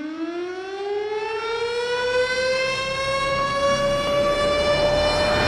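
Siren winding up: one long tone that rises slowly in pitch and levels off, then begins to fall near the end.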